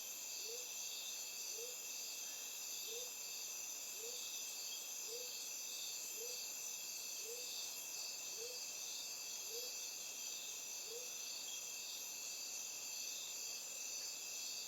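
Steady insect chorus, with a short, low, slightly rising call repeated about once a second, ten times, stopping about three-quarters of the way through.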